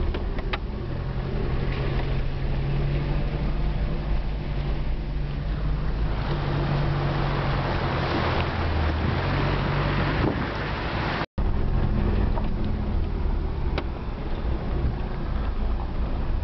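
Land Rover engine running steadily in a low gear as the vehicle wades through a shallow river, heard from inside the cab. Water rushes and splashes around the wheels, loudest about six to ten seconds in. The sound cuts out for an instant about eleven seconds in.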